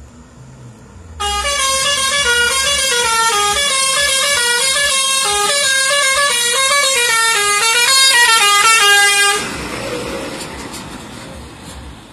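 Musical air horn on a decorated Sri Lankan passenger bus playing a tune of stepped notes for about eight seconds. It cuts off suddenly, and the rushing noise of the bus going past follows and fades.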